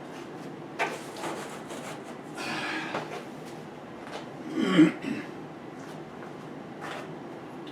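Handling noise from fitting sheet-metal furnace ductwork: a few light knocks and a scraping rub, then a short, louder low thud about halfway through.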